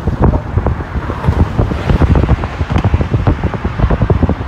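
Wind buffeting the microphone in a moving car, with irregular low thumps over the car's steady road noise.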